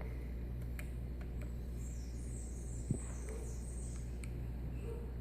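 Steady low electrical hum with a few faint clicks, one sharper about three seconds in: buttons being pressed to set the clock's minutes.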